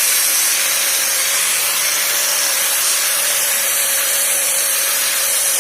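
4-inch angle grinder running steadily with a polishing pad, a steady whine under a loud hiss.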